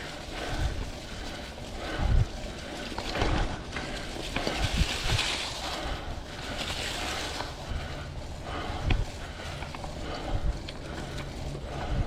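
Mountain bike riding singletrack covered in leaves and mud, heard from a chest-mounted camera: tyres rolling over leaves and dirt with a steady rustle, and several sharp thumps as the bike goes over bumps.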